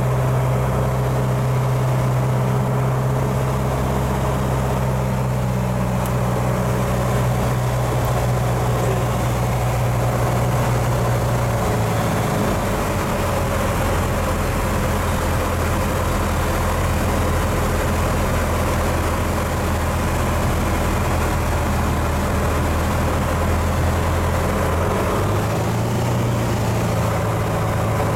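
Piper PA-28 Cadet's four-cylinder engine and propeller droning at reduced power on final approach, heard from inside the cockpit. The engine note drops lower about twelve seconds in and picks up a little near the end.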